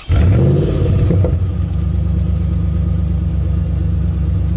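Car engine starting up, revving briefly as it catches, then settling into a steady idle.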